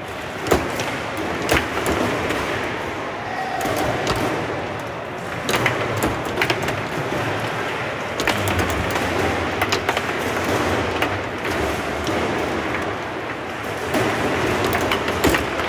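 Foosball table in play: the hard ball struck by the plastic figures and knocking against the table walls, with rods sliding and rattling, as irregular sharp clacks over a steady hall noise. The loudest clack comes about half a second in.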